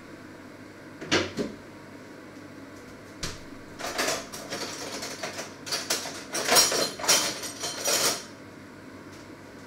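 Kitchen clatter of things being handled: a couple of knocks about a second in, another near three seconds, then a few seconds of busy rattling and knocking that stops near the end.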